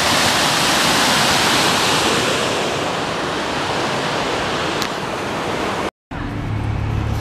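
A small river running high and fast after rain, its white water rushing over rocks in a steady, loud roar. About six seconds in it cuts off abruptly, and a low steady hum follows.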